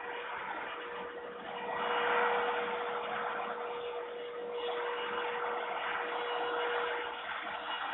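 Steady rushing noise with a constant hum underneath, swelling a little about two seconds in, from the microphone of a nest camera high on a heating-plant chimney; no falcon calls.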